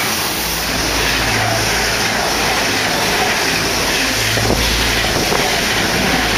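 ICE T high-speed electric multiple unit passing close by at speed: a steady, loud rush of wheels on rails and air along the train.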